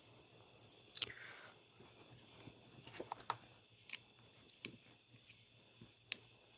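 Faint, scattered small clicks and taps of metal parts as the Matco BFR128LF flex head ratchet's internals are slid back together by hand, with a quick cluster of clicks about three seconds in.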